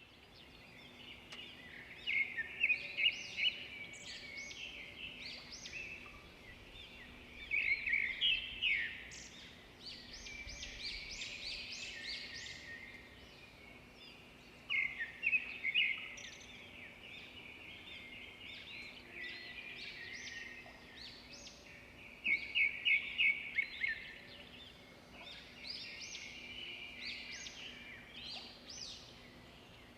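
Songbirds singing: one bird repeats a short, fast run of bright notes every five to seven seconds, with softer chirping between the phrases.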